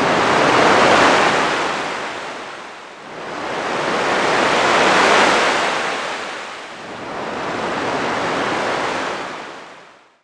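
Ocean waves breaking, the surf swelling and falling back three times before fading out near the end.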